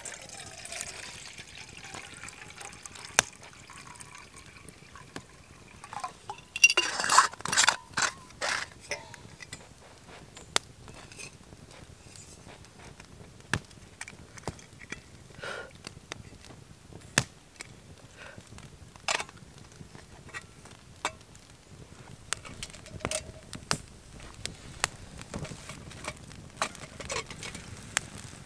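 Water poured from a metal bottle into a titanium camp pot, followed about six seconds in by a run of loud metallic clinks and knocks as the cookware is handled, then scattered light clicks.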